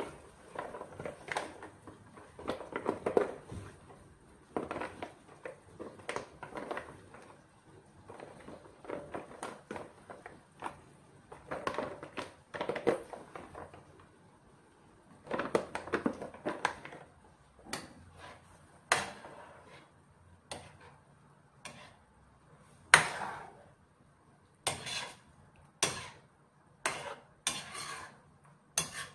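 Metal ladle scraping and clinking against an aluminium pan as a thick tomato meat sauce is stirred, in irregular strokes. Sharper separate knocks come in the last third, the loudest about two-thirds of the way through.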